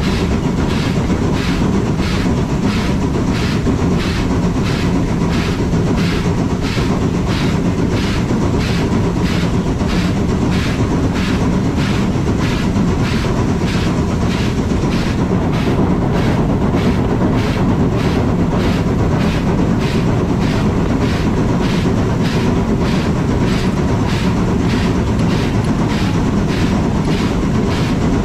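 Rack-and-pinion steam locomotive working steadily along a rack section: a regular chuffing beat about twice a second over the low, continuous running rumble of the train.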